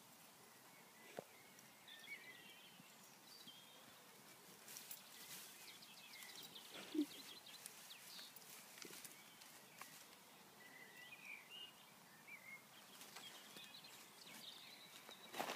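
Near silence: faint outdoor ambience with scattered faint short chirps and a few soft rustles and clicks.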